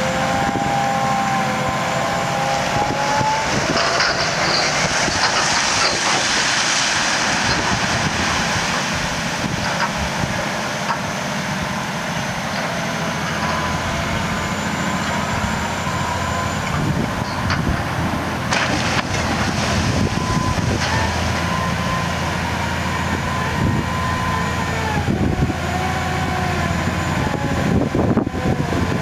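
Sennebogen 6140E HD dragline crane's Cat C27 diesel engine running under load as the machine swings and works its winches. A whine rises in pitch a few seconds in and falls again later, with a hiss a few seconds in and a few sharp knocks in the second half.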